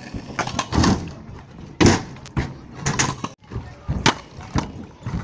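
Freestyle stunt scooter knocking and slapping on ramps and asphalt as it is ridden and landed. There are about five or six sharp knocks, the loudest about two seconds in.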